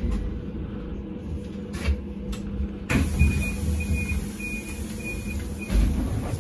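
Inside a SINARA-6254 trolleybus, a low steady rumble and electric hum. About three seconds in there is a click, then five short high beeps over about two seconds, and a low thump near the end.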